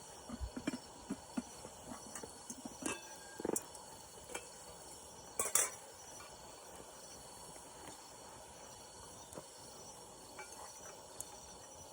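Eating utensils clinking against dishes and a cooking pan: scattered light clinks and knocks, mostly in the first half, the loudest about five and a half seconds in.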